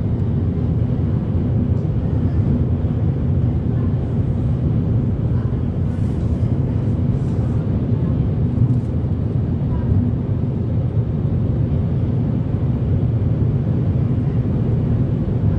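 Steady low rumble of a vehicle driving at speed: engine and tyre noise on the road.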